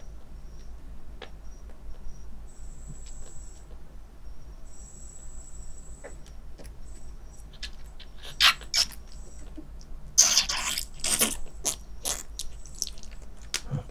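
Young kitten suckling from a nursing bottle: quick, faint wet clicks from its mouth on the nipple. Louder rustling and scraping comes in twice, briefly about 8 seconds in and for a couple of seconds around 10 to 12 seconds in.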